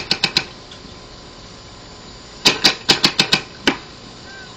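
Paintball markers firing in rapid bursts: a quick run of about four shots at the start, then a burst of about seven shots about two and a half seconds in.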